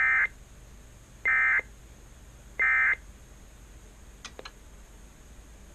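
Emergency Alert System end-of-message (EOM) signal: three short, identical warbling digital data bursts about a second apart, the SAME code that marks the end of an alert. Two faint clicks follow about four seconds in, over a low hum.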